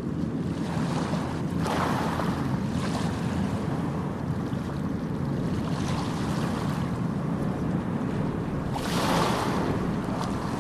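Ocean surf on a beach: a steady low rumble of water, with a wave breaking and washing in about two seconds in and another, louder one near the end.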